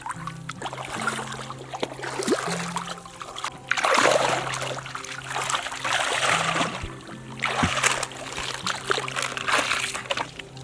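Water splashing and sloshing in repeated surges, the loudest about four seconds in, over low steady background tones.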